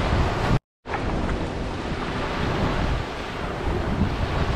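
Gentle waves washing onto a sandy beach, with wind buffeting the microphone as a steady low rumble. The sound cuts out completely for a moment about half a second in, then resumes.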